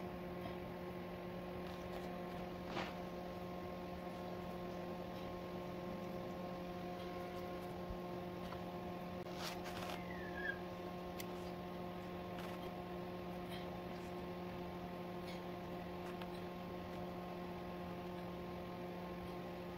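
Steady electrical hum with several fixed tones running throughout, with a few faint taps and clicks as fried eggplant slices are laid into a metal baking tray.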